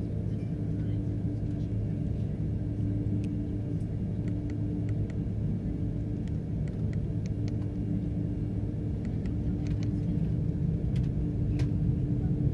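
Jet airliner heard from inside the cabin while slowly moving on the ground before takeoff: a steady low rumble of the engines with a faint steady hum and scattered light clicks. It grows slightly louder near the end.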